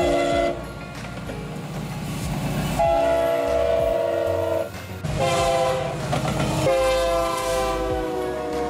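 Diesel locomotive multi-chime air horns sounding a short blast and then three long blasts, the last falling slightly in pitch, over the low rumble of the passing locomotives.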